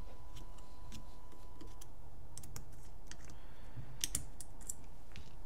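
Small, light clicks and ticks of a hex key working a frame screw out of an Empire Axe 2.0 paintball marker, scattered, with a quicker run of clicks about four seconds in.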